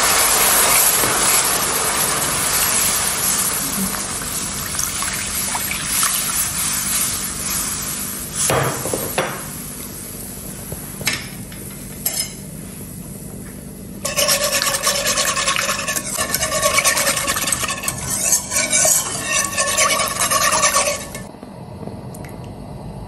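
Spatula stirring liquid into a hot butter-and-flour roux in a pan, with a sizzle that fades over the first several seconds as the liquid cools the roux. A livelier stretch of stirring against the pan starts just past halfway and stops suddenly about two seconds before the end.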